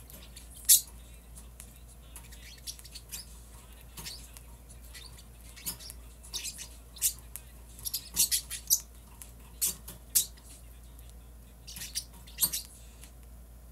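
Irregular light clicks and scratchy handling noises close to the microphone, with one sharp loud click about a second in and a thicker cluster in the second half.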